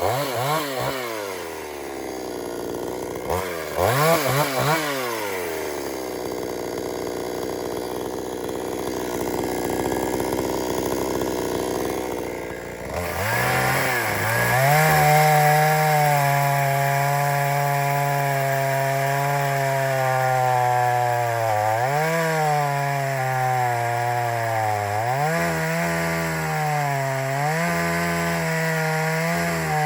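Gasoline chainsaw revved twice and then run at high throttle while cutting a log. The engine note sags and recovers a couple of times under load in the second half.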